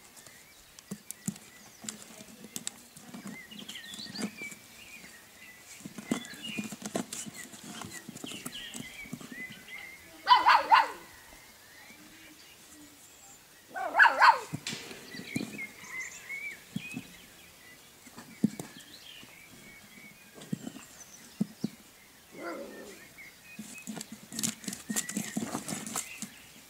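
A puppy scrapes and pats with its paws at a square lid set in the paving, making scattered soft clicks and scratches. Two short, loud dog barks come about ten and fourteen seconds in.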